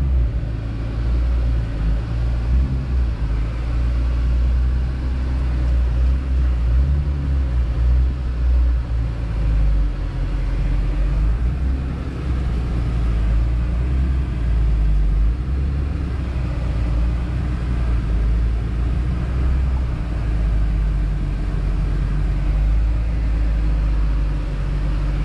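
Infiniti G35's 3.5-litre V6 with an aftermarket Motordyne exhaust, heard from inside the cabin while driving slowly. It makes a steady deep rumble that rises and falls a little but never sharply revs.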